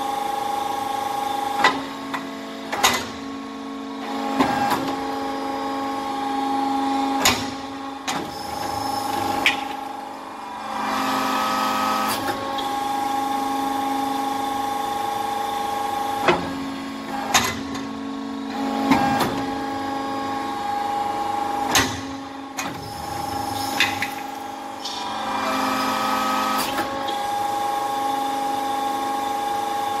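RUF briquetting press for metal chips running, its hydraulic power unit giving a steady hum. About a dozen sharp metallic clunks of the press cycling come at uneven intervals, and the sound swells twice, about 11 and 26 seconds in.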